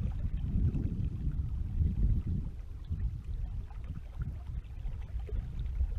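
Wind buffeting an action camera's microphone: a low, uneven rumble.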